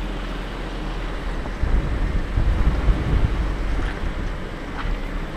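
Off-road 4x4's engine running while driving slowly over a dirt trail, with wind buffeting the microphone; the low rumble grows louder and rougher about a second and a half in.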